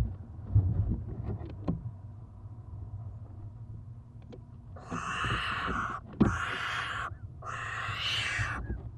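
Barn owl owlets hissing: three long, raspy hisses of about a second each, with short breaks, starting about five seconds in. Before them come a few knocks and scrapes on the nest box.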